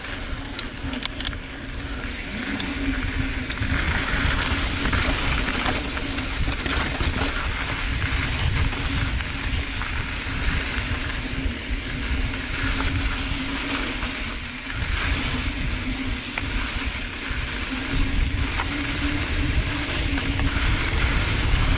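Wind buffeting an action camera's microphone on a mountain bike going down a dirt trail, with knobby tyres rolling and crunching over packed dirt. A steady low hum sits under it.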